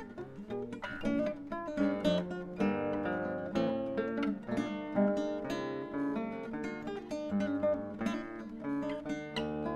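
Background music: acoustic guitar, plucked and strummed, with a string of quick notes.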